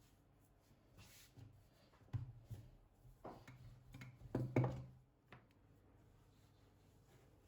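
Quiet handling sounds of food preparation: a few soft knocks and rustles, the loudest about four and a half seconds in.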